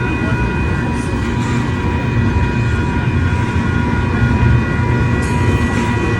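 Electronic railroad crossing bell ringing steadily over the low rumble of a passing train.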